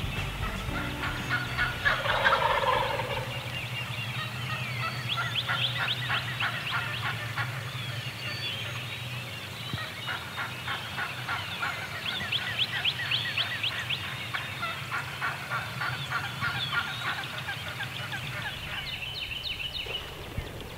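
Wild turkey gobblers gobbling from their roost trees at first light, one rapid rattling gobble after another, the loudest about two seconds in.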